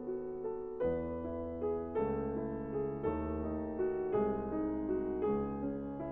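Background piano music, a slow, gentle piece with a new chord struck about every second.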